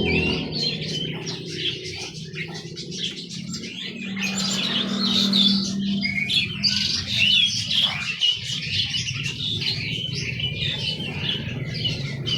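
Many small caged songbirds chirping and twittering together, a dense overlapping stream of short high calls.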